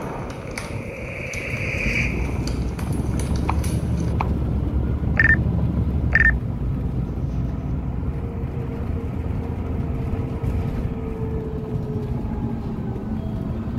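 Inside a moving city bus: steady rumble of the engine and road noise as the bus drives. Two short, high beeps about a second apart come about five seconds in.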